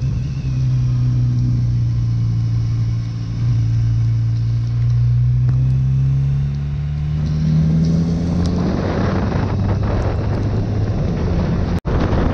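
Motorcycle engine running at a steady cruise, its note climbing as the bike accelerates a few seconds before the end. Heavy wind and road rush on wet asphalt then builds up over the engine, and the sound drops out for an instant near the end.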